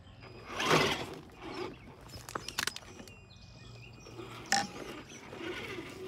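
Electric motor and geared drivetrain of an SCX10 II-type RC rock crawler whirring in uneven bursts as it crawls on rock, loudest about a second in, with a single sharp click later on.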